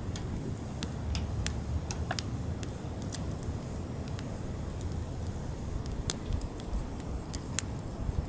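Split firewood burning in an open fire: irregular sharp crackles and pops, about a dozen scattered through, over a low steady rumble.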